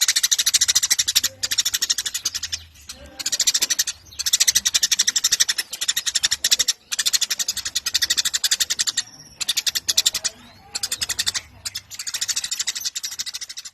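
Eurasian tree sparrow chattering in long, rapid runs of quick high notes, each run lasting a second or two with short breaks between.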